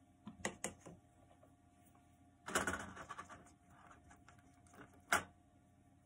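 Light clicks in the first second, a short rustle about two and a half seconds in, and one sharp click near the end: small handling noises.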